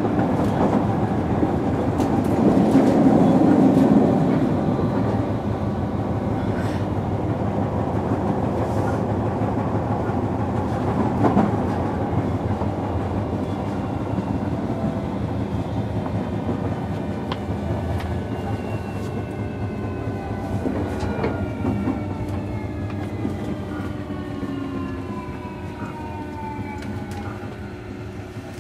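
Running sound inside a JR Kyushu 305 series electric train's motor car: wheel and track noise with some rail clicks. In the second half the VVVF inverter and permanent-magnet traction motor whine falls steadily in pitch as the train slows, and the noise fades toward the end.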